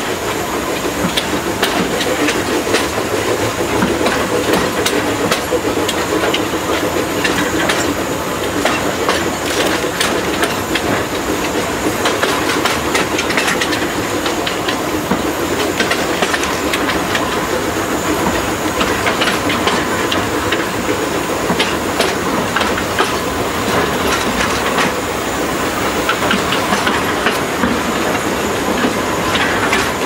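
760 mm narrow-gauge forest-railway steam train running along the track: a steady loud rumble with wheels clicking and clattering over the rail joints, and a hiss of steam.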